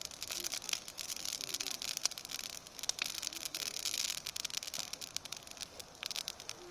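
Wood campfire crackling: irregular sharp pops and snaps over a steady high hiss.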